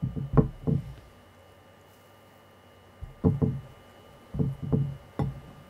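Close-miked eating sounds from a bite into a slice of castella sponge cake and the chewing after it. They come as short, low bursts: a cluster in the first second, then more from about three seconds in.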